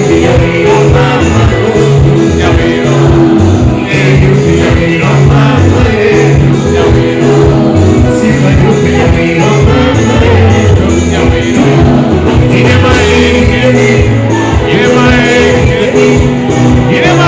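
Loud live band music with a steady beat and pulsing bass line, with singing over it, played through a PA system.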